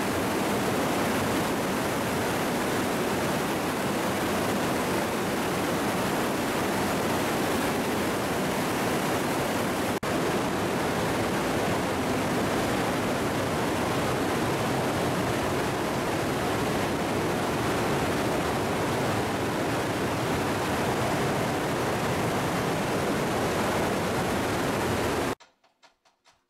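Glacial meltwater river rushing through a narrow rock gorge: a steady, loud rush of water that cuts off suddenly near the end.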